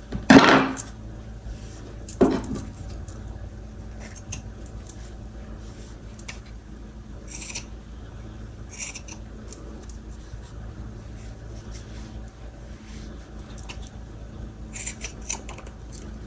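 Scissors snipping through the ends of a yarn tassel to trim it to length: a handful of separate short snips, the loudest just after the start and about two seconds in, with smaller ones scattered later.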